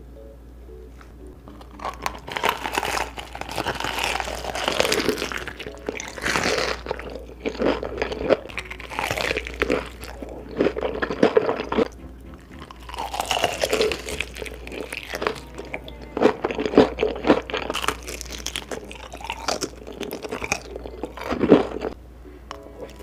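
Close-miked ASMR eating sounds: loud, crisp crunching as teeth break through the Hot Cheetos crust of a fried chicken drumstick, coming in repeated clusters of bites, with wetter chewing between them.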